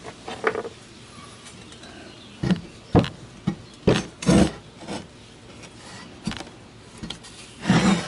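Irregular knocks and clunks of the old jointer's metal frame and parts being shifted and handled on a wooden workbench, about nine in all, loudest in the middle and near the end.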